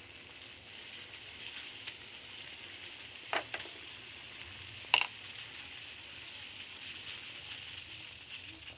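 Water at a hard boil in a pot on the stove, a steady hissing bubble, as tea leaves are put into it. A couple of light knocks come about three and a half seconds in, and a sharper, louder knock about five seconds in.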